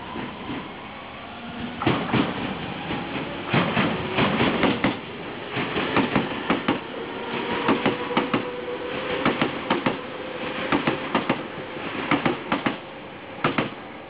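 An electric commuter train passing, its wheels clattering over rail joints in regular groups of clacks over a steady rumble, with a faint motor whine. The clacks stop shortly before the end as the last car goes by.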